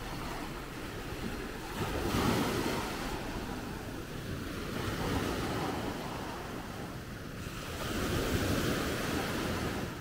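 Small Mediterranean waves breaking and washing up on a sandy shore, the surf swelling three times, about three seconds apart.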